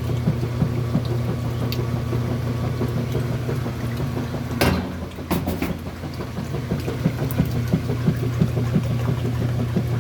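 Agitator washing machine running its wash: a steady motor hum with an even pulse of about four beats a second. About halfway through there is a sharp click, and the hum weakens briefly before picking up again.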